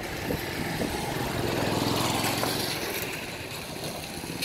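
A motor vehicle engine running, with a rapid low pulsing that swells about two seconds in and then eases off.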